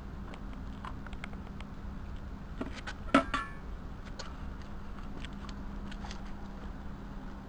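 Metal scoop clinking and scraping in a plastic drum of dry chicken manure, with scattered light clicks and one sharp, briefly ringing clank about three seconds in. A steady low hum runs underneath.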